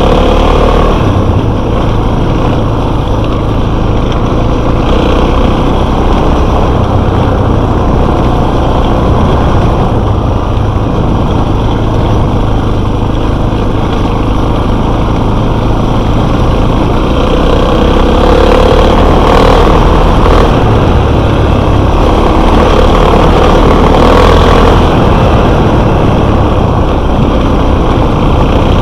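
Enduro motorcycle engine running while under way, a steady loud drone that grows a little louder in the second half.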